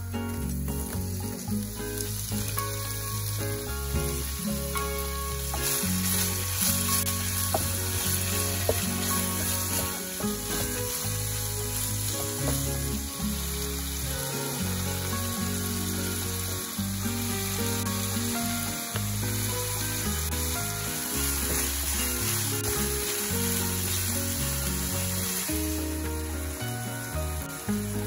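Chopped onion and then chunks of gurnard fish sizzling in olive oil in a nonstick frying pan. The sizzle grows louder from about five seconds in. Background music plays underneath.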